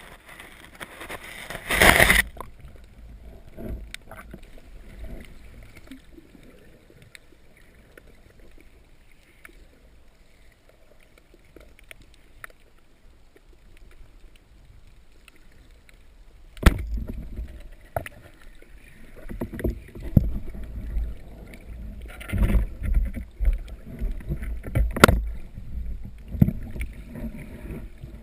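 Water sloshing and splashing in a spearfishing dive recording. A loud splashy burst ends about two seconds in, followed by a quieter stretch with faint scattered clicks. From about two-thirds of the way through come repeated low rumbles and rushes of water.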